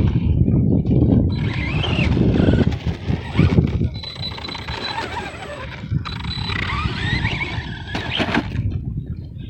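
Arrma Big Rock RC truck's electric motor and drivetrain whining in three runs of throttle, the pitch rising and falling with speed, over a steady low rumble.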